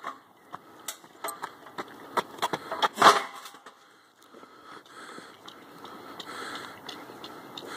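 Plate-loaded strongman yoke clanking and rattling as it is carried, with a loud metal clank about three seconds in as it is set down on asphalt. Softer knocks and shuffling follow.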